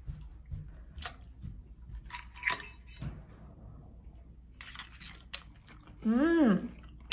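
Metal ladle and spoons clinking against ceramic bowls and a pot as soup is served and eating begins, with chewing. About six seconds in, a short rising-then-falling hummed "mmm" of someone tasting the food.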